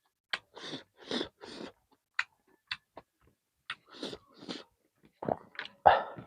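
Close-up mouth sounds of a person eating chicken: irregular wet clicks and short smacking, chewing bursts, the loudest one near the end.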